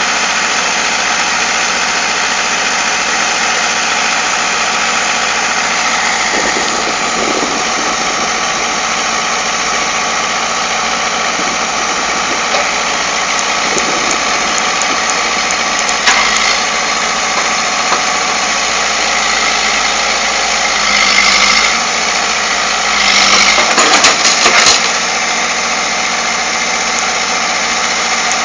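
Excavator's diesel engine running steadily, with a sharp knock partway through and two louder, ragged spells of noise in the last third.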